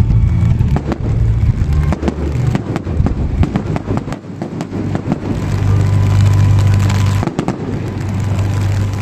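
Fireworks bursting and crackling, with a dense run of sharp cracks in the first four seconds, over a steady low hum of music.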